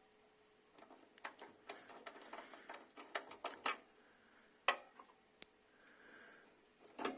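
Wing nut being unscrewed by hand from a polarity terminal inside a MIG welder: a run of small metal clicks and light rattling, then a sharper click near the middle and a couple of single clicks.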